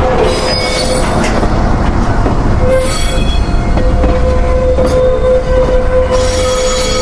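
Train running on rails, its wheels squealing in a steady high tone over a low rumble, with bursts of hiss.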